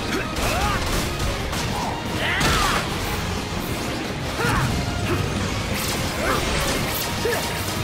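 Anime battle sound effects: a string of crashing blows and weapon clashes spread over several seconds, with short sweeping accents, over a steady low rumble.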